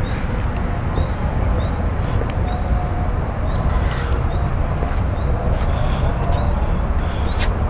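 Insects droning steadily at one high pitch, with short faint chirps over it and a low rumble underneath.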